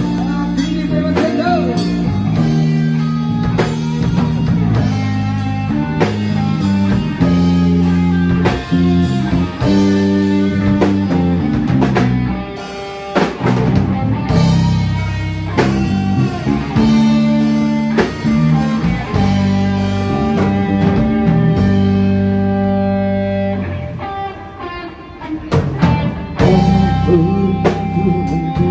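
Live band playing a rock instrumental passage: electric guitar over a drum kit.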